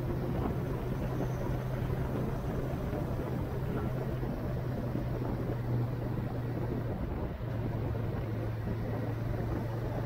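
A vehicle's engine running at a steady speed while under way, a constant hum with rough road and wind noise over it; the level dips briefly about seven seconds in.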